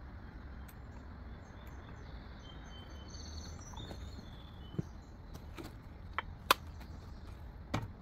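Outdoor quiet with birds chirping over a low steady rumble. In the second half, a few sharp knocks and clicks as the stopped chainsaw and its milling jig are handled and set down on the wooden log supports; one about two-thirds through is the loudest.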